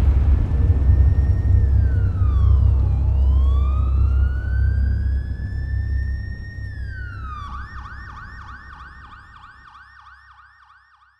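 Emergency-vehicle siren: a slow wail that falls and then climbs back up, switching about two-thirds of the way through to a fast yelp of about four cycles a second, over a deep rumble. The whole sound fades out toward the end.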